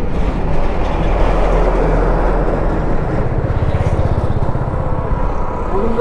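A road vehicle's engine running as it passes close by: a low drone with a rough pulsing near the middle.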